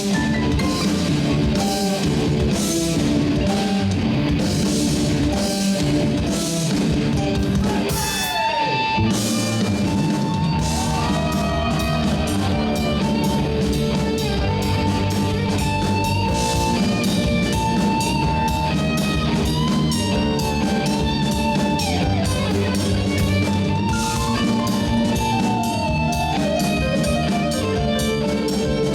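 Rock band playing on drum kit and electric guitars. About eight seconds in, a pitch slides downward, and a high, held melody line then carries over the band, with faster cymbal strokes near the end.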